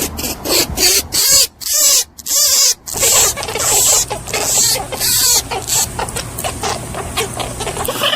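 Rabbit making a rapid series of short squeaks and hissy bursts, one after another without a break, cut off abruptly at the end.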